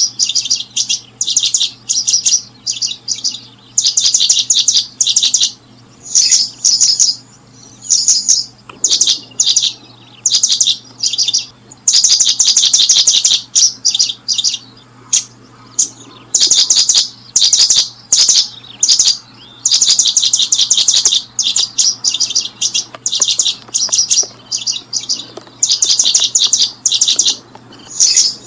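Small birds chirping in quick, high-pitched runs of rapid notes, one run after another with hardly a break, over a faint steady low hum.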